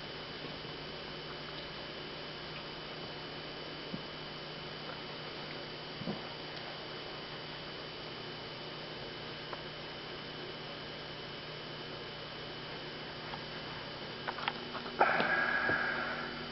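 Steady electrical hum with faint light taps. Near the end, a louder noisy rush lasting about a second that fades out.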